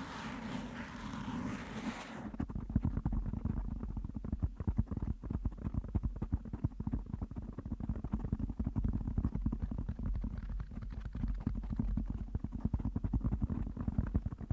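Fingers scratching directly on a microphone, giving a rapid, dense run of low, muffled scratches. For the first two seconds the sound is a brighter, hissy rubbing, which cuts off suddenly and gives way to the low scratching.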